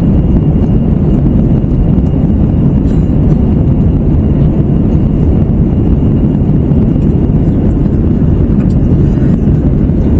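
Steady loud cabin noise in an Airbus A321-111 climbing: a low, even roar of engines and airflow, with a faint high whine held throughout.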